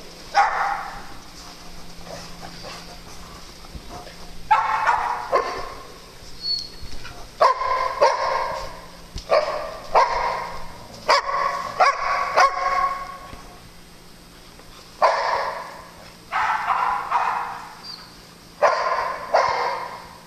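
Dogs barking during play, in runs of several quick barks with short pauses between.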